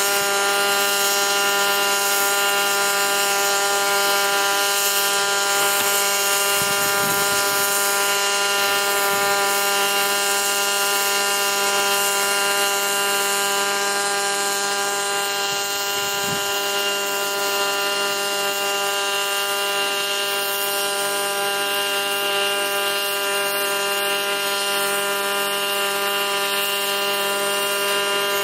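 Multirotor drone hovering, its propellers and motors giving a steady buzzing whine with several held pitches.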